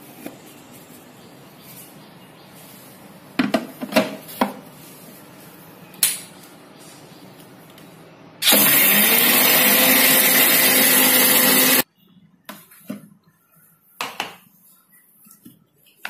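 Electric mixer grinder running for about three seconds, its small steel jar grinding dried mint leaves to powder. The motor's pitch rises as it spins up, and the sound cuts off abruptly. Before it come a few clicks and knocks as the steel jar and lid are handled and fitted.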